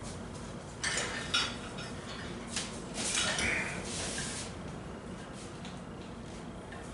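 Metal clinks from a home-built cable crossover as its carabiners, pulleys and handles knock together when a cable fly begins. There are a few sharp clinks in the first three seconds, then a longer, softer rustle.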